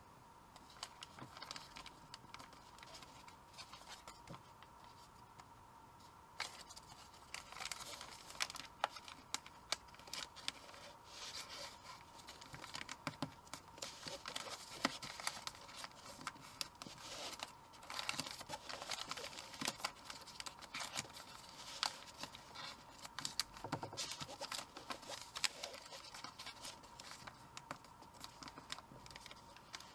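Origami paper being folded and creased by hand: irregular soft rustles, crinkles and light taps as fingers press the folds flat, sparse at first and busier after a few seconds. A faint steady high hum runs underneath.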